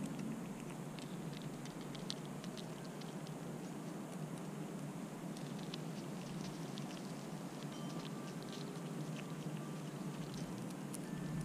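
A squirrel eating from a pile of mixed bird seed and cracked corn, with scattered sharp little clicks and crunches as it chews and picks through the kernels.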